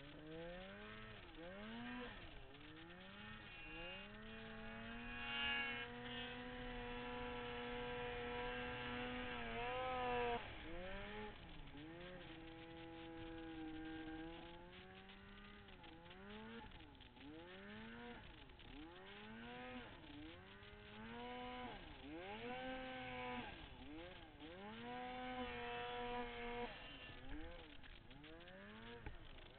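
Turbocharged 2008 Polaris Dragon 800 two-stroke snowmobile engine being throttled up and down over and over, with held runs at high revs and a sudden drop in revs about ten seconds in.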